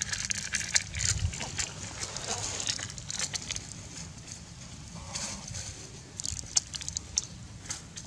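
Plastic bag crinkling and rustling as a puppy and a monkey nose into it for food, heard as scattered small crackles and clicks.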